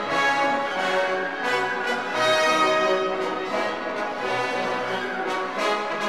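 Orchestral background music led by brass, with sustained notes that change every second or so.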